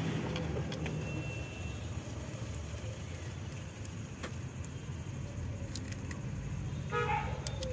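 Faint metallic clicks and clinks as a small bolt is turned out by hand from the upper timing-chain guide on a car engine's cylinder head, over a steady workshop background hum.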